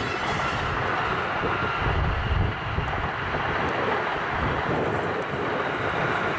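A passing train: a steady rushing noise, with wind on the microphone.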